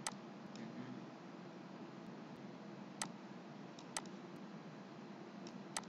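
Computer mouse button clicks: four short, sharp clicks spread over a few seconds, with a few fainter ticks between, against a steady faint hiss.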